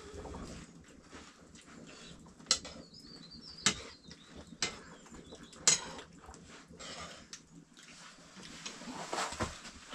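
Cooking utensils knocking and clinking now and then, a handful of sharp separate strikes over a low background, with a few faint small-bird chirps about three seconds in.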